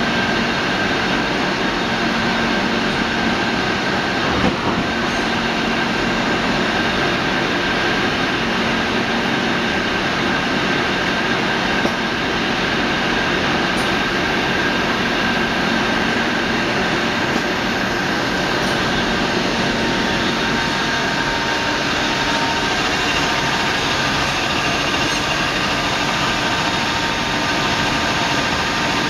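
Mori-Say TM 262 CNC multi-spindle lathe running in production: a steady, dense mechanical din of spindles turning and tools cutting, with a steady high whine through it and a few light clicks.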